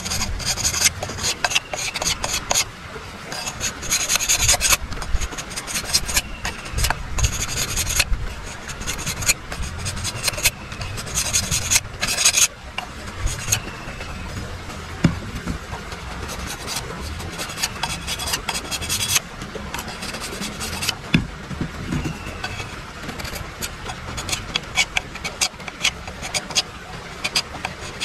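A broad knife blade scraping along a thin bamboo strip in quick, repeated rasping strokes that come in bursts, with a few sharper knocks.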